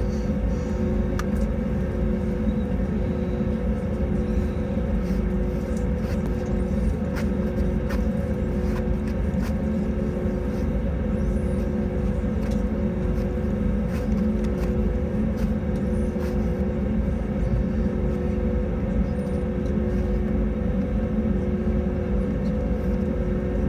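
Cabin noise of an Airbus A320neo with Pratt & Whitney PW1100G geared turbofans at climb power after takeoff: a steady low rumble with two steady hum tones over it and a few faint rattles.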